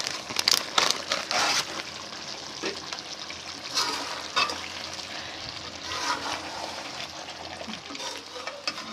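Chicken curry sizzling in hot oil in a pan while a spoon stirs and scrapes through it several times. This is the dry-frying (bhuna) stage: the water has cooked off and the masala is frying in the fat.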